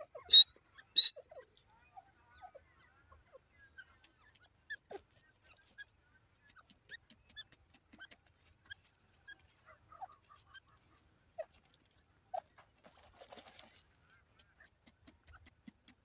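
Grey francolin (teetar) giving the last two loud, sharp notes of a rapidly repeated call series, ending about a second in. After that come only faint scattered chirps and ticks, with a brief soft rustle past the middle.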